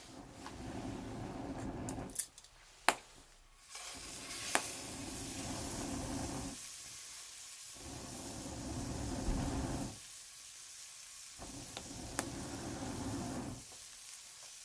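Bonfire burning with a steady sizzling hiss and a few sharp pops from the wood, under a low rumble that cuts in and out several times.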